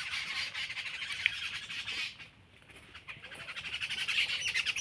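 Many birds squawking and chattering in the trees in a dense, rapid stream. It drops away for about a second midway, then picks up again.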